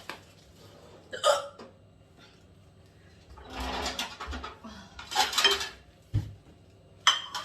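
A woman hiccuping in a persistent bout: short, sharp hiccups a few seconds apart, about three in all. There is a low thump about six seconds in.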